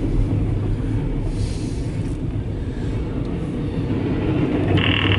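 CSX intermodal freight train passing a grade crossing: a steady low rumble of wheels on rail, heard from inside a car. A high steady squeal comes in near the end.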